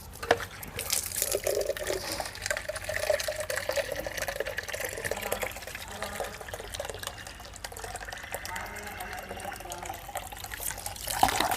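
Water being poured into the puppy's empty tin water container, filling it.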